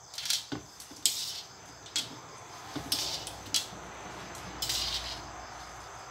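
Metal ladle and tongs scraping and clinking against a metal wok and a plate while prawns and glass noodles are served out: a run of separate short scrapes and clinks, about eight of them.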